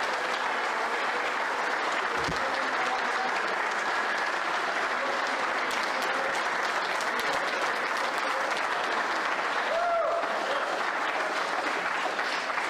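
Sustained applause from a large group of people clapping, dense and steady throughout. About ten seconds in, a single voice calls out briefly over it.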